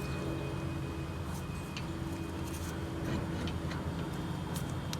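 Scattered light clicks and ticks of metal brake parts being handled while the top caliper bolt is fitted, over a steady low hum.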